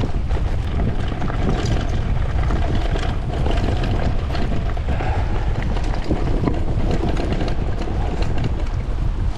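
Wind rumbling on a GoPro action camera's microphone over the crunch of mountain-bike tyres on loose stones, with many small rattles and knocks from the bike jolting over the rocky trail.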